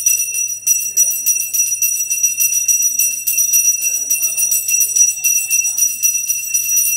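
Brass pooja hand bell rung rapidly and without pause, a bright steady ringing with quick, even clapper strikes. Faint voices underneath.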